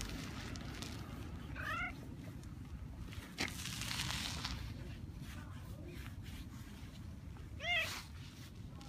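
A cat meowing twice: two short calls with a wavering pitch, one about two seconds in and one near the end. A short rustle comes between them.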